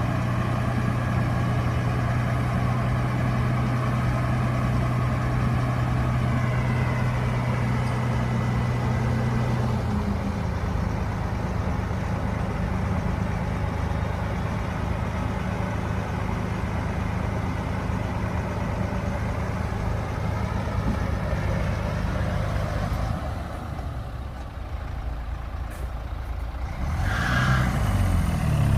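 Heavy diesel engine of earthmoving machinery running steadily under load. Its note drops about ten seconds in, then again later, and changes pitch briefly near the end.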